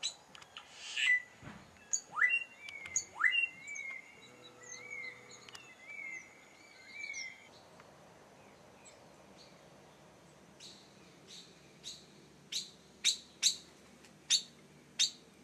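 Wild birds calling in tropical forest: a run of short whistled notes, each sliding upward, then after a lull a string of short sharp chip notes, about two a second.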